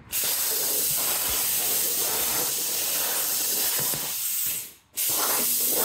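Hypertherm plasma cutter torch cutting steel plate on a CNC table: a loud, steady hiss of the arc and air jet. It fades out about four and a half seconds in, and the torch fires again half a second later for the next cut.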